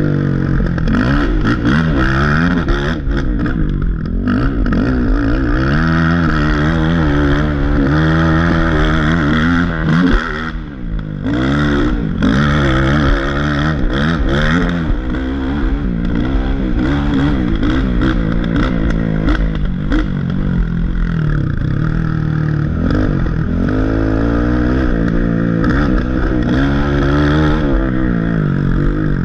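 Race ATV engine under hard throttle, heard from a camera mounted on the quad, revving up and down constantly as the rider works the throttle. The throttle is chopped briefly about ten seconds in.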